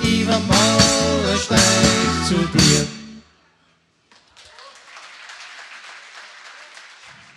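Live polka band of accordion, electric guitar, bass guitar and drums playing the last bars of a song and stopping on a final chord about three seconds in. After a short silence, applause.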